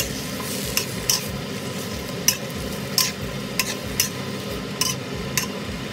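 Leafy greens sizzling in a hot wok as they are stir-fried, with a spatula clicking and scraping against the pan about once or twice a second.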